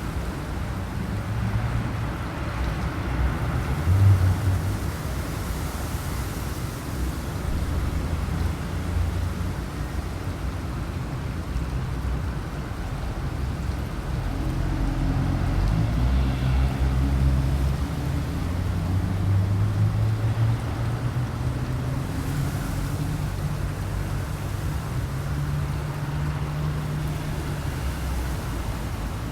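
Gusty wind blowing, mostly a low rumble that swells and eases, with a stronger gust about four seconds in.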